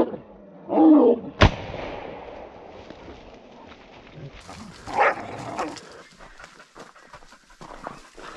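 A pig-hunting bailing dog barking at a bayed wild boar, then a single sharp bang about a second and a half in. After that come lower scuffling noises and a short high cry about five seconds in.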